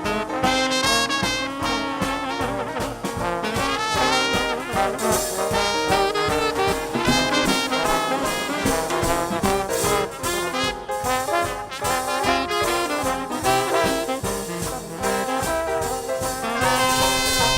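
Traditional Dixieland jazz band playing an instrumental passage with trumpet and trombone lines over a steady swinging beat.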